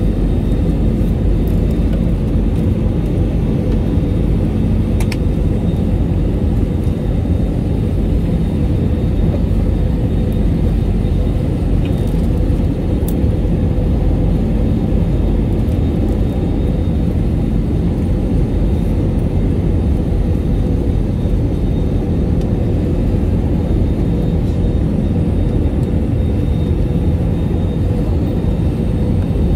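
Steady cabin noise of an Airbus A320 airliner: a deep, even rumble of engines and airflow with a faint steady hum, and a couple of faint ticks.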